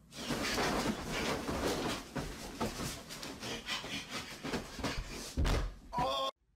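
Bedsheets and blankets rustling and thrashing as a person flails about on a bed and scrambles out of it. A heavy thump comes near the end, then a brief cry.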